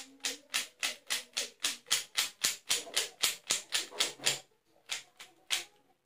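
Plastic Rubik's cube being turned quickly by hand, its layers clacking in a rapid run of about four to five clicks a second, then a few scattered turns near the end.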